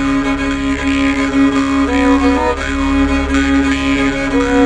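Mjolnir talharpa, a bowed lyre, playing a slow melody over a steady drone string, with a deep low drone underneath.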